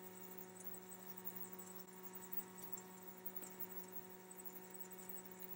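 Faint steady electrical hum, with a few faint light ticks.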